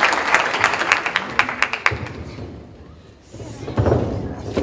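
Audience clapping in quick, scattered claps that die away about two seconds in, followed by a low rumble near the end.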